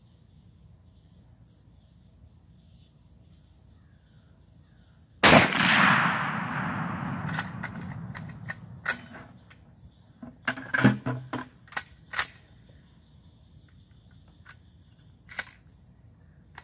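A single shot from a Mossberg lever-action .30-30 rifle about five seconds in, its report echoing and fading over two to three seconds. It is followed by a string of sharp clicks and clacks as the lever is worked to eject the spent case and chamber the next round.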